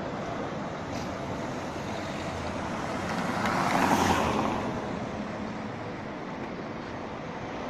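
City street traffic noise, with one road vehicle passing close by that swells and fades, loudest about four seconds in.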